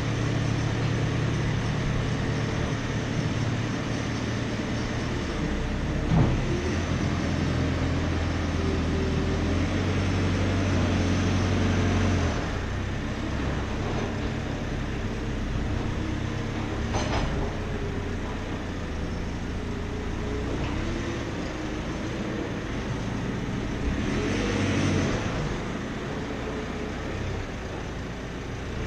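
JCB telehandler's diesel engine running as the machine manoeuvres to clear manure from the shed; the engine note is higher and stronger at first and drops off about twelve seconds in. A single knock about six seconds in.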